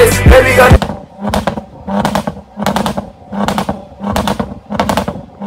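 Jaguar F-Pace engine blipped repeatedly, about once every 0.7 seconds, with the exhaust popping and crackling on each blip.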